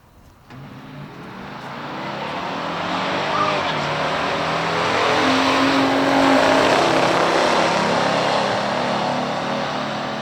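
Two big-block V8 muscle cars, a 427 COPO Chevelle and a 455 Buick Gran Sport, accelerating hard down a drag strip side by side. The engine sound starts suddenly about half a second in, grows louder to a peak around six seconds in, then fades as the cars run away.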